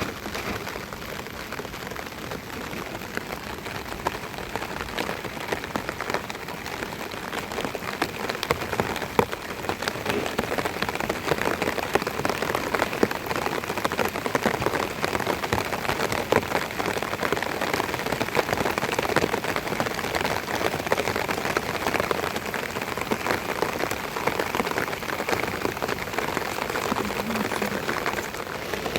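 Steady rain falling, with many small drop impacts heard hitting a surface.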